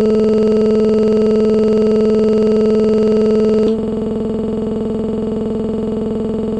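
Background music: held synthesizer tones sustaining one steady chord, then switching abruptly to another held chord about halfway through.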